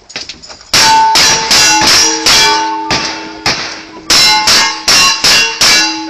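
About ten revolver shots fired in quick succession, two strings of shots with a short break about halfway, where the shooter switches guns. Each shot is followed by the ring of a struck steel target.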